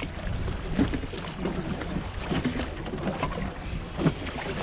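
Wind buffeting the microphone and sea water washing against a small boat's hull, with two sharp splashes, about a second in and near the end, from a hooked sea bass thrashing at the surface.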